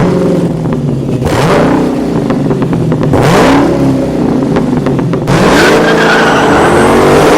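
Car engine revving up and down several times, with tyres squealing and skidding.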